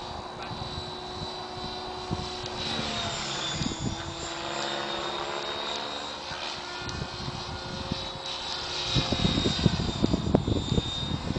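Compass Atom 6HV electric model helicopter flying overhead: a steady whine from its motor and rotor, its pitch bending slowly up and down as it moves around. From about nine seconds in, irregular low buffeting hits the microphone.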